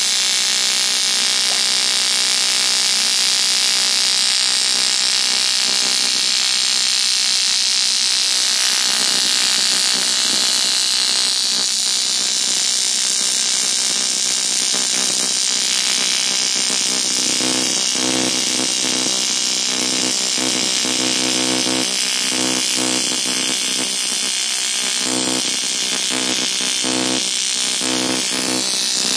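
AC TIG welding arc on a cast aluminium alloy wheel, a loud, steady buzz as the torch runs along the crack with filler rod fed in by hand. From about halfway a lower, flickering buzz joins in.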